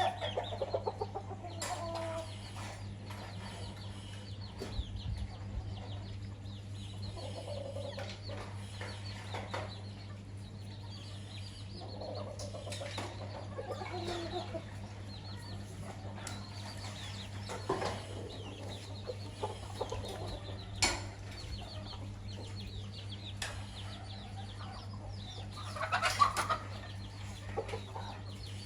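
A flock of chickens clucking on and off as they feed, with scattered sharp ticks and a louder flurry of calls near the end. A steady low hum runs underneath.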